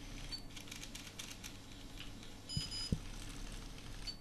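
Short high electronic beeps from a LEGO Mindstorms programmable brick: one just after the start and two in quick succession about two and a half seconds in. Under them are faint scattered clicks, a steady low hum, and a brief low knock near three seconds.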